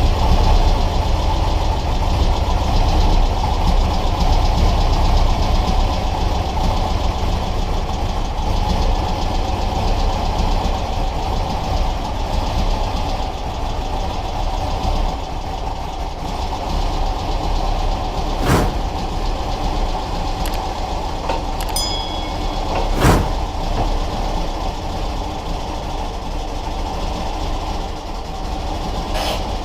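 A steady, low mechanical running drone. Three sharp knocks come through it: one about two-thirds of the way in, another a few seconds later, and a third near the end.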